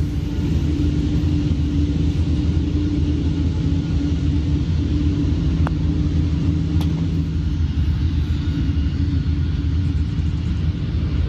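A steady low engine rumble with a held hum, like machinery running nearby. About halfway through, a putter taps a golf ball, and about a second later there is a faint click as a short putt drops.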